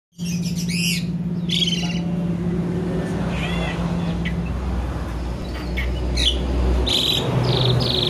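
Sooty-headed bulbul calling in a series of short, varied chirps and harsher buzzy notes, mimicking an Asian pied starling (jalak suren). A steady low hum runs underneath.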